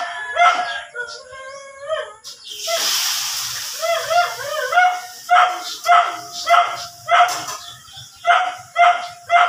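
A dog yelping over and over in short high-pitched barks, about two a second, with a warbling whine in the middle. A brief rush of splashing water comes about three seconds in.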